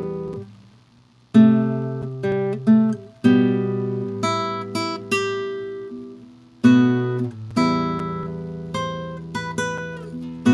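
Nylon-string classical guitar played solo: slow plucked chords and single notes, each left to ring and fade. The sound dies almost away shortly after the start before the next chord is struck.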